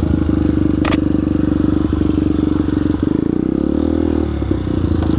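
Air-cooled four-stroke single-cylinder trail motorcycle engine running under throttle. Its revs dip and climb back up in the second half, with one sharp clack about a second in.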